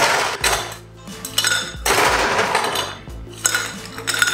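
Ice cubes clattering and clinking as a metal ice scoop digs into a copper bowl of ice and tips them into a glass, in about three rattling bursts, to chill the glass.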